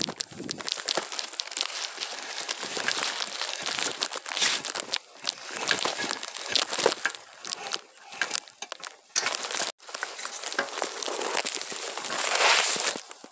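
Korean pine branches and needles rustling and crackling against a pole-mounted camera as a cone-harvesting pole is worked through the crown, a dense scratching with many small clicks. About nine seconds in comes a louder click as the pole head's plastic Mini Striker part comes loose.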